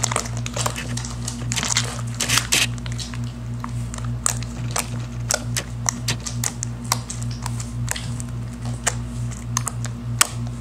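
Fluffy slime being squeezed and kneaded by hand, giving quick wet clicks and pops as the small air bubbles trapped in it burst. A steady low hum pulsing a few times a second runs underneath.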